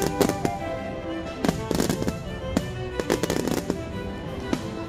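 Aerial fireworks bursting, with sharp bangs and quick clusters of crackling every second or so, over music with long held notes.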